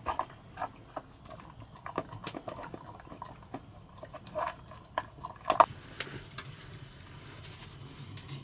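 A dog eating from a bowl: irregular wet smacks and clicks of its mouth at the bowl, for about the first six seconds.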